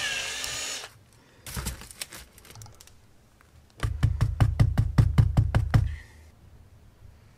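Cordless drill with a #15 bit, drilling out the carburetor's fuel pickup hole, runs for under a second and winds down with a falling whine. A few seconds later comes a fast, even run of about a dozen knocks over two seconds.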